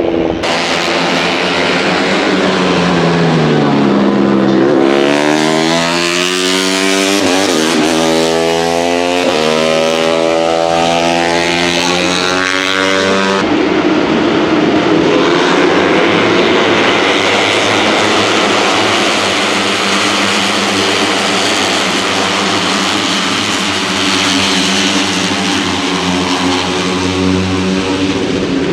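Racing motorcycles on track, KTM RC250RBR 250cc single-cylinder four-stroke engines. The engine note drops for the first few seconds, then climbs again and again through several upshifts, and about halfway through gives way to a denser mixed engine noise from several bikes.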